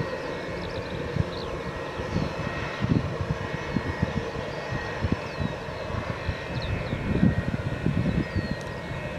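Jet airliners taxiing, a Boeing 787-8 Dreamliner and a Boeing 737, their engines at taxi idle giving a steady hum and whine, with irregular low rumbles throughout.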